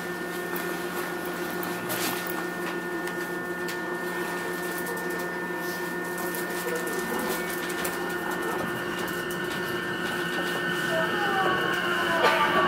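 Inside an E233 series electric train: a steady electrical hum with several fixed tones from the onboard equipment. About nine seconds in, whines that glide up and down in pitch join in and the sound grows louder near the end, as the traction inverter comes on.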